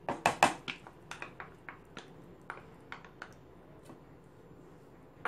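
A wooden spatula knocking and scraping against a nonstick frying pan while it stirs cream into cooked peas and fenugreek. A quick cluster of loud knocks comes right at the start, then scattered lighter clicks that thin out after about three seconds.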